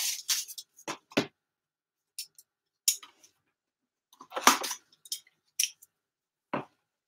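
Shrink-wrap on a sealed hockey-card hobby box being cut and pulled off: short scattered crinkles and snips of plastic, with dull knocks of the cardboard box on the table, the loudest cluster about four and a half seconds in.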